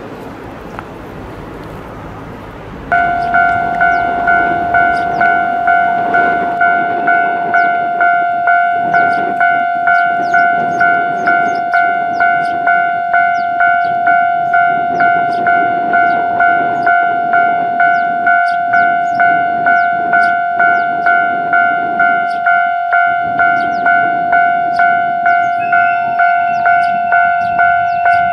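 Japanese railway level-crossing alarm ringing: an electronic bell repeating its two-tone stroke evenly, a little under two strokes a second, that starts abruptly about three seconds in and warns of an approaching train.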